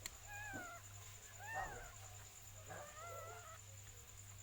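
Cat meowing three times: short, high calls that rise and fall in pitch, the third a little longer.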